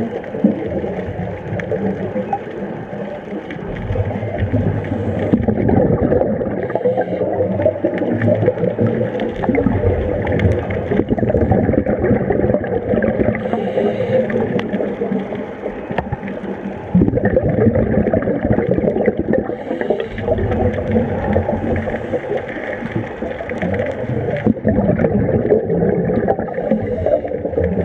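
Underwater sound of a scuba diver's regulator and exhaled bubbles, a continuous low bubbling rumble that swells and eases.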